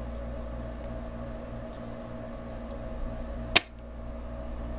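A plunger-style solder sucker fires once, a single sharp snap about three and a half seconds in, drawing molten solder off a transistor's through-hole joint. A steady electrical hum runs underneath.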